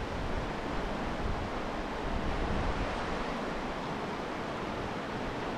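Shallow river rapids: water rushing steadily over and around rocks, an even rushing noise.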